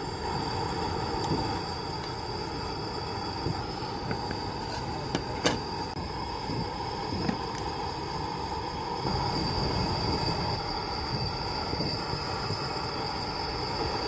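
Big pan of ramen soup boiling hard over a gas burner: a steady burner roar with bubbling, and a few light clicks.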